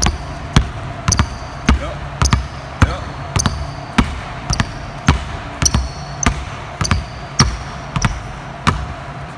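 Two basketballs dribbled hard on a hardwood gym floor, the bounces coming about every half second in a steady rhythm.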